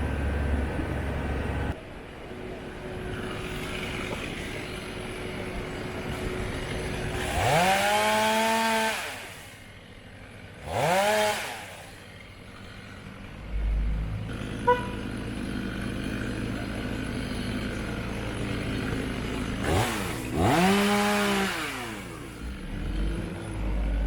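A power saw revs up three times. Each rev climbs quickly in pitch and holds for a second or two, over the steady low running of a heavy machine's engine.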